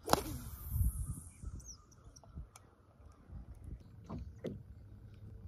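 A cast with a spinning rod and reel: a sharp swish, then the line hissing off the spool for about a second and a half, falling in pitch. Wind rumbles on the microphone afterwards, with a few faint clicks.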